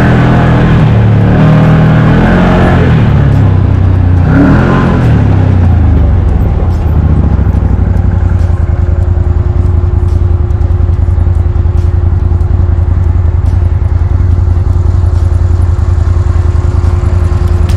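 A motor vehicle's engine running, rising and falling in pitch for the first several seconds as if accelerating and shifting, then settling into a steady drone.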